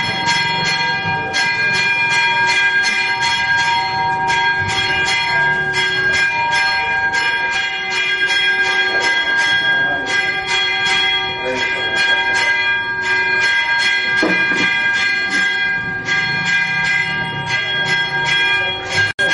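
Church bells ringing a continuous festive peal: rapid, repeated strokes over long, overlapping ringing tones, as for a feast-day vespers.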